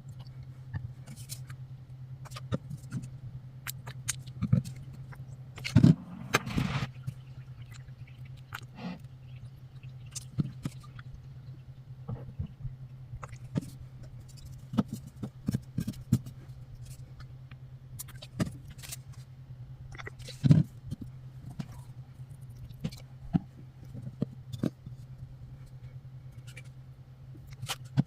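Scattered light taps, clicks and scrapes of small objects being handled, over a steady low hum. About six seconds in there is a louder, longer scraping rustle.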